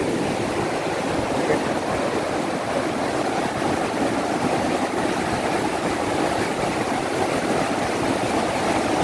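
Water rushing steadily through a tidal sluice gate whose leaf is broken and will not close, so the incoming tide pours through the gap.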